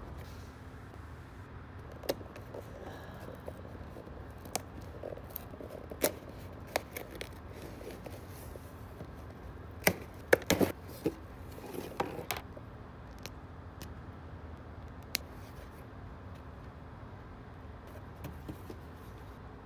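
Cardboard boxes being handled and opened: scattered sharp knocks and clicks, with a quick cluster about halfway through as the packing tape on a small box is picked at, over a faint steady hum.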